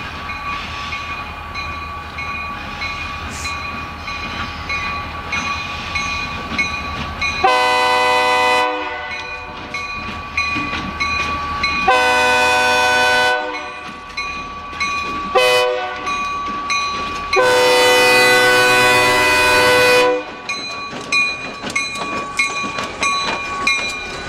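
EMD SD40-2 diesel locomotive sounding its horn for a grade crossing in the standard long, long, short, long pattern, the last blast the longest, over the steady running of its diesel engine as it approaches.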